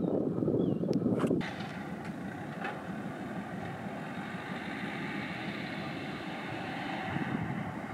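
A ferry's engines droning across the harbour with a low rumble of wind on the microphone. The rumble is loud for about the first second and a half, then drops suddenly to a quieter, steady drone.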